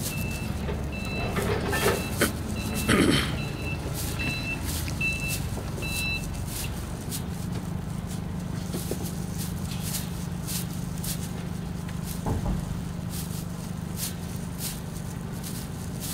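A vehicle's reversing alarm beeps about once a second for the first six or so seconds over a steady low engine hum, with a loud clatter about three seconds in. Scattered sharp clicks and rustles run throughout, from plastic hedge strands being worked through chain-link fencing.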